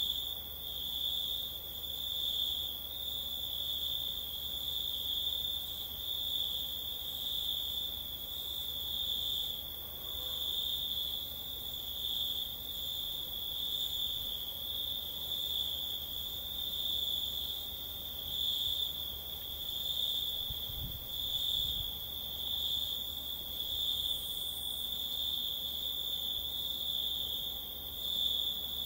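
Crickets chirping in a continuous high trill that pulses gently in level.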